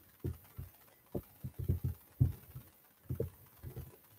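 About a dozen dull, low thumps at irregular spacing, from fingers tapping and clicking a laptop's keys and touchpad.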